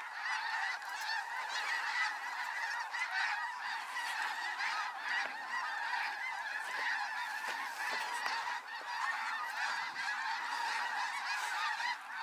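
A huge flock of snow geese calling overhead: a dense, unbroken mass of overlapping honks with no gaps.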